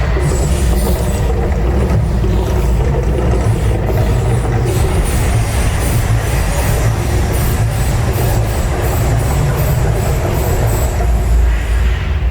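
Mirage volcano show: a loud, deep, steady rumble from the show's sound system under its music, with a quick run of regular beats from about five seconds in until near the end.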